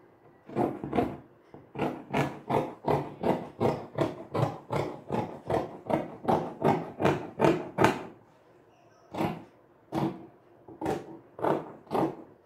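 Fabric scissors cutting through printed cloth on a cutting table: a steady run of crisp snips, about three a second. The snips pause for about a second around two-thirds of the way through, then start again.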